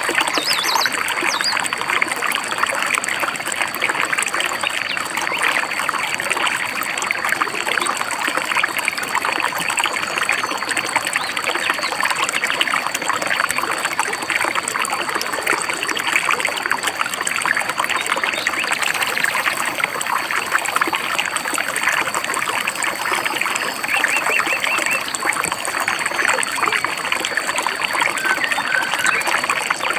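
Shallow stream babbling and trickling steadily over rocks, with a few brief bird chirps about a second in and again near the end.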